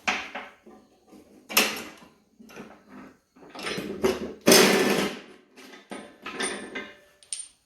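Socket wrench working the nuts off the spindle pulleys of a lawn mower deck: a series of metallic clanks and scrapes, the longest and loudest about halfway through.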